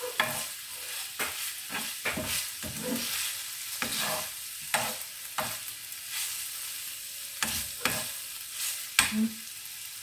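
Pork pieces sizzling in oil in a frying pan, with a spatula scraping and knocking against the pan at irregular intervals as the meat is stirred.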